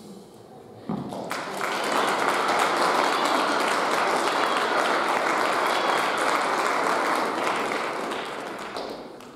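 Audience applauding. The applause starts suddenly about a second in, holds steady, then dies away near the end.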